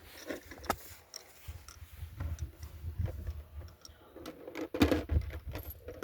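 Light clicks and knocks of a double-barrel shotgun and its shells being handled and loaded, with a sharper knock about five seconds in.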